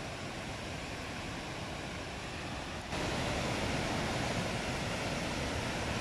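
Langfoss waterfall rushing: a steady, even noise of falling water, which turns a little louder about three seconds in.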